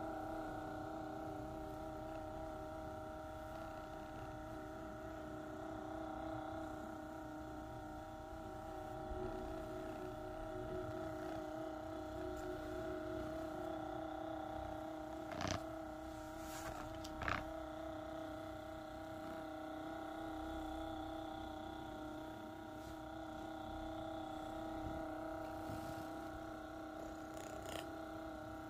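Percussive massage gun running with a steady motor hum as it is pressed against a cat's body. Two short clicks come about halfway through.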